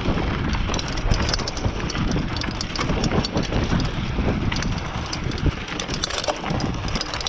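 Mountain bike descending a rocky dirt trail: wind buffeting the camera's microphone and a steady low rumble from tyres rolling over dirt and rock, with frequent sharp clicks and clatters from the bike rattling over the bumps.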